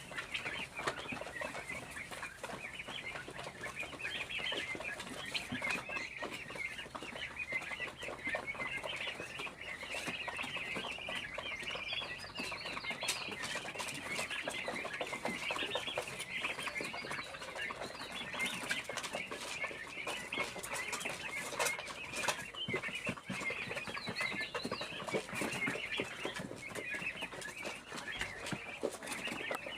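A flock of chickens in a poultry house clucking and chirping all at once, a steady dense chatter of many overlapping short calls.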